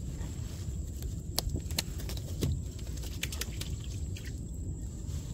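Outdoor background noise: a steady low rumble with a faint, steady high tone, broken by a few sharp clicks about a second and a half and two seconds in.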